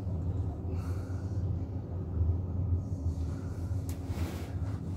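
Steady low rumble inside a moving cable-car gondola cabin. Two short breathy puffs of noise come about a second in and near the end.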